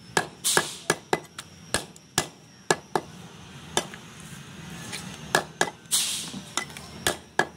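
Butcher's cleaver chopping goat meat and bone on a wooden log chopping block: an irregular run of sharp chops, about two a second, with a pause of a second or so in the middle.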